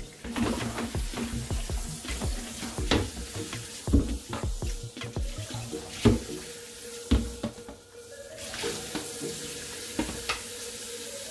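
Kitchen tap water running into a stainless steel sink while a plastic container is rinsed, with several sharp knocks as it bumps against the sink. Background music plays underneath.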